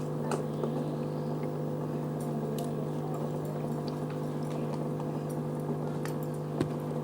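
Sticky glue slime being worked in a container, with scattered soft clicks and squelches and a stronger knock near the end, over a steady low electrical hum.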